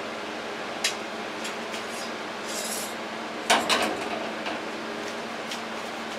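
Plates and kitchen items handled on a countertop: scattered clicks and clinks, a brief scrape, and one louder clatter a little past halfway. Under them runs a steady low appliance hum.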